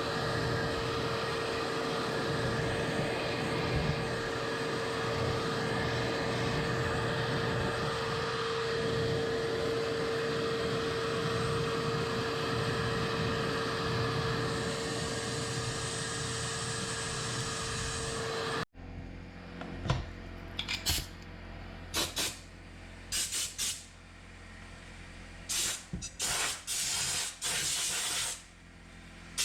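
A shop vacuum runs steadily with a constant whine for a while, then cuts off abruptly. After that an air gun on compressed air fires a series of short hissing blasts, blowing dust out of refrigerator condenser coils.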